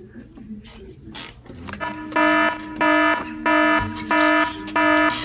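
School fire alarm horn going off, starting about two seconds in and sounding in rapid, evenly spaced blasts, roughly one and a half a second.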